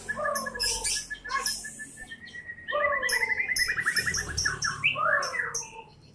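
White-rumped shama (murai batu) singing: a fast string of short repeated notes that quickens and climbs a little in pitch, broken by three lower falling whistles and sharp high notes.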